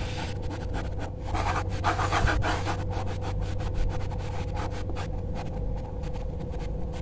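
Pencil sketching on sketchbook paper: quick, repeated scratchy strokes. A steady hum sits underneath.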